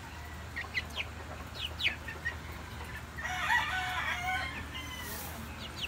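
Young gamefowl chicks peeping: short, high, falling chirps scattered throughout. About three seconds in comes a louder, lower chicken call lasting under a second.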